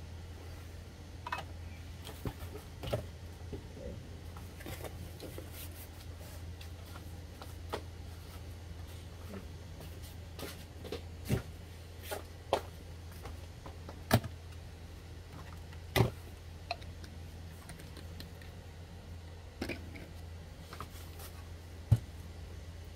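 Scattered clicks, taps and knocks of printer parts being handled and fitted, with a few sharper knocks in the second half, over a steady low hum.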